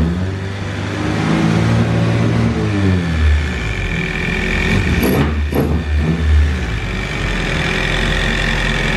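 Toyota 20-valve four-cylinder engine running, its revs wandering and briefly blipped about five seconds in, then settling into a steady idle.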